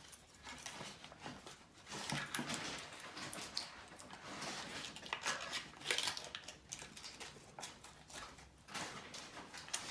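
A person eating close to the microphone, chewing and crunching food with irregular crackling clicks.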